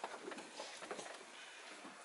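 Faint rustling and a few light clicks of children shifting about in a small room.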